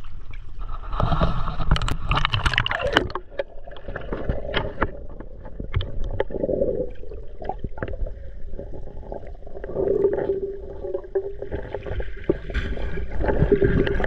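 Shallow sea water sloshing and gurgling around a camera as it is dipped in. About three seconds in it turns to the muffled sound of being underwater, with scattered small clicks and taps.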